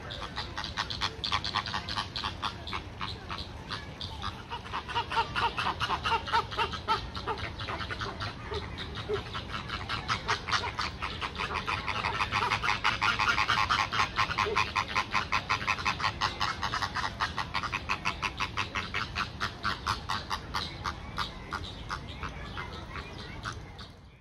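A flock of Chilean flamingos calling together: a dense, continuous chatter of rapid repeated calls from many birds at once, about five a second. It is loudest around the middle and fades out at the very end.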